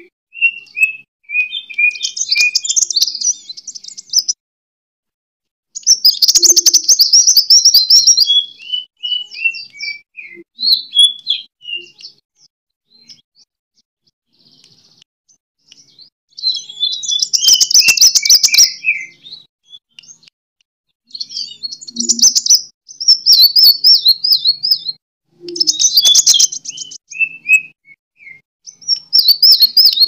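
Sunbird singing its fighting song in repeated phrases a few seconds apart. Each phrase mixes fast, buzzy high trills with runs of sharp notes that step downward in pitch.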